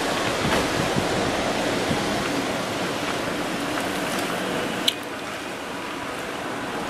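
Steady hiss of car tyres rolling over wet pavement, heard from inside the moving car. There is one sharp click about five seconds in.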